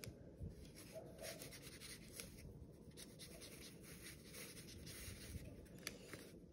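Faint scratchy strokes of a felt-tip marker on watercolour paper as short feather lines are drawn, many quick strokes in an uneven rhythm.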